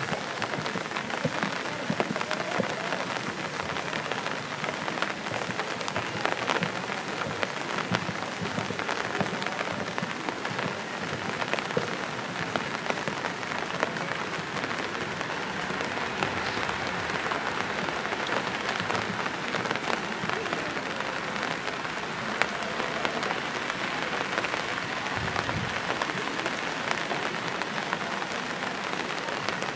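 Steady rain falling: a dense, even hiss with many small ticks throughout.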